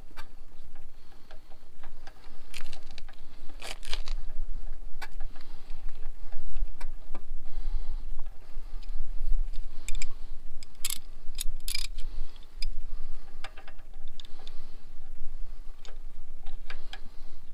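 Hand tools and small metal parts clicking and clinking as they are handled at the base of a riding mower's engine, with a few sharper clinks about four seconds in and two more about two-thirds of the way through, over a low rumble.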